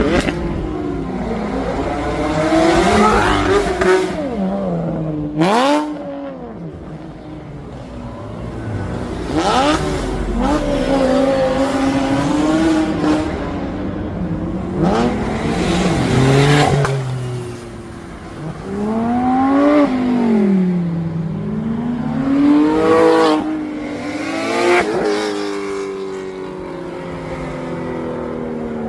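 Several cars in turn revving hard and accelerating away. Each engine's pitch climbs, then falls as the car goes by. A single sharp crack comes about five seconds in.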